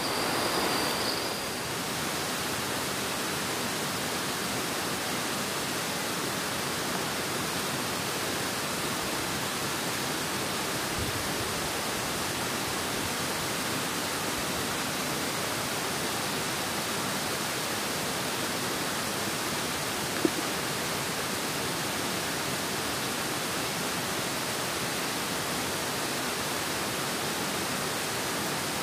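Steady rushing of flowing water, with one faint click about twenty seconds in.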